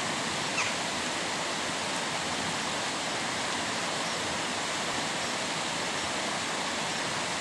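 Steady, even rushing noise like a nearby stream, with no breaks or changes; a faint, brief high chirp about half a second in.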